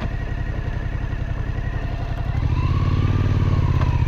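Suzuki V-Strom 1050's V-twin engine running as the motorcycle rides along, getting louder about two seconds in as the throttle opens.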